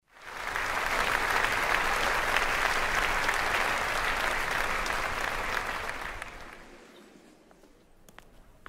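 Audience applause, a dense steady clapping that fades out after about six seconds. A few sharp footstep clicks follow near the end.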